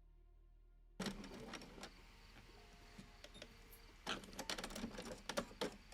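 A computerised sewing machine stitching a programmed series of decorative stitches, heard as two short spells of quick mechanical clicking and rattling. The first starts abruptly about a second in, after near silence, and the second, louder one comes about four seconds in.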